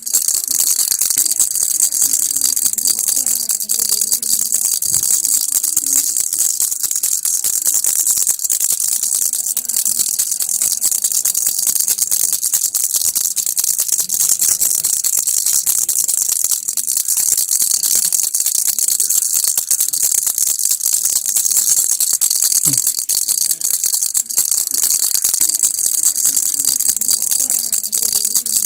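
Baby rattle shaken steadily and continuously, a dense unbroken stream of small clicking beads.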